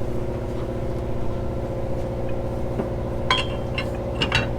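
A motor runs steadily, a low even drone. About three seconds in come four or five sharp metallic clinks of metal hardware being knocked or worked while a mast stay is tightened.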